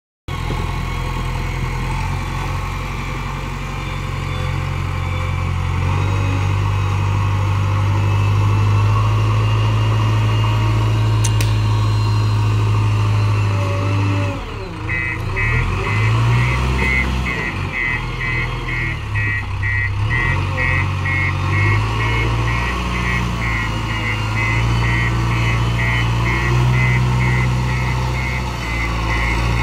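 JCB 3DX backhoe loader's diesel engine running as the machine works, its pitch shifting about halfway through. From then on a reversing alarm beeps steadily, about two beeps a second.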